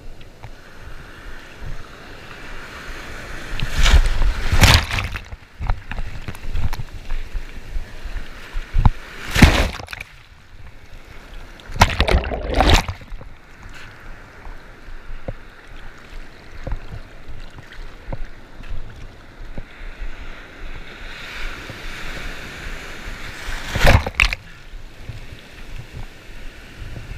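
Shallow surf foaming and washing around a camera held low in the water: a steady hiss of moving water, broken by several loud splashes as waves hit the camera, about four seconds in, around nine and twelve seconds, and again near the end.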